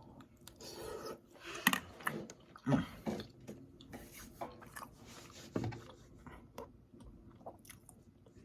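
A man chewing a bite of soft home-cooked food from a plate of roast beef, potatoes, mac and cheese and green beans, with irregular wet smacks and clicks of the mouth. They are louder over the first few seconds, then quieter.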